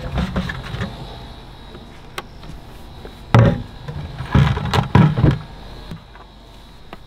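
Hollow knocks and thuds of stacked white plastic buckets being pulled apart and set down on wooden dock boards. The loudest knock comes about three seconds in, and a cluster of knocks follows a second later.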